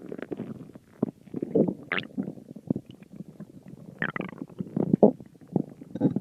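Stomach growling: a run of irregular gurgles and rumbles, with higher-pitched gurgles that bend up and down about two seconds in and again about four seconds in.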